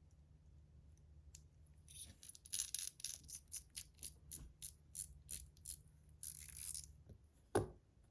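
Small metal fidget parts clicking and clinking in the hand as they are fitted back together: a run of light clicks, about two or three a second, starting about two seconds in, then a brief scraping rattle and a single knock near the end.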